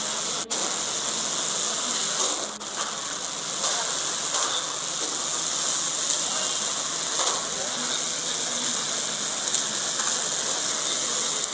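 A large building fire burning: a steady, fast crackling hiss.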